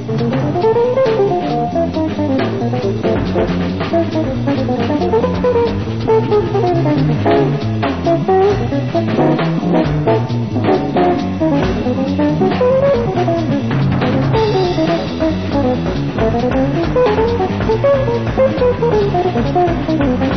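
Jazz group playing, with an electric guitar running long, fast single-note lines that rise and fall over bass guitar and drum kit.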